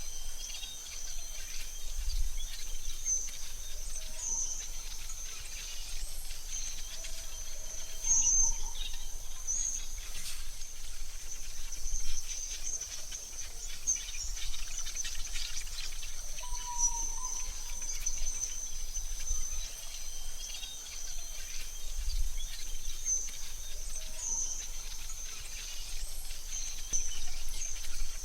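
AI-generated forest ambience: a steady high-pitched insect trill, with scattered short bird chirps and a lower whistled call about two-thirds of the way in. A low rumble comes and goes underneath.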